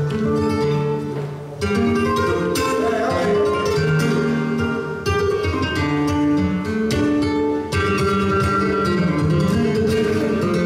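Flamenco guitar playing a solo passage: plucked melodic runs over bass notes, broken a few times by sharp, accented chords.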